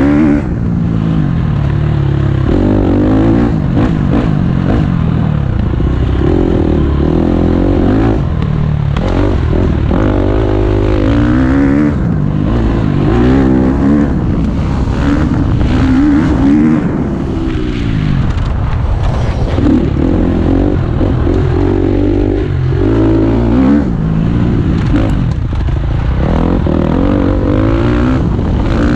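KTM 250 SX-F four-stroke single-cylinder motocross engine revving hard and easing off again and again as it is ridden around a dirt track, heard from the rider's helmet.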